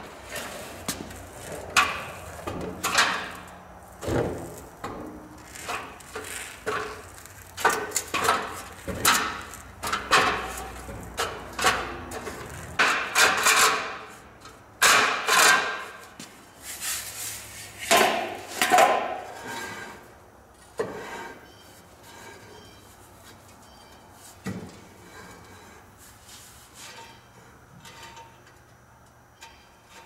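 Irregular metal clanks and knocks from taking a steer wheel and its hub cover off a semi truck's front hub, loudest and busiest for about the first two-thirds, then fading to light scattered knocks.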